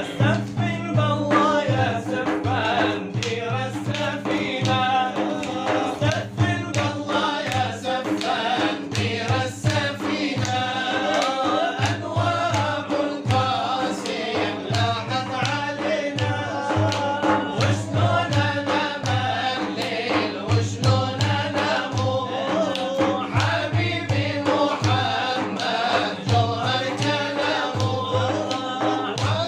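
Male voices singing an Arabic devotional nasheed (inshad), accompanied by steady hand-drum beats.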